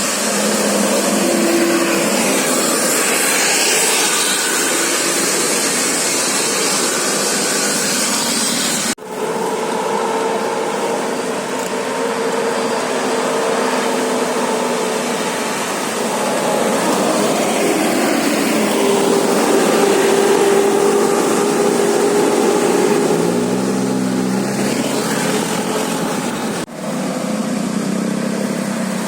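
Steady roadside traffic noise from passing vehicles' engines and tyres, dropping out abruptly for an instant twice.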